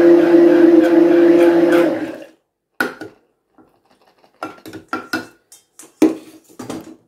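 Hand-held immersion blender running steadily in a glass pitcher of beetroot and watermelon juice, switched off about two seconds in and winding down. Then a series of short sharp knocks and clinks as the wet blender is lifted out and put aside.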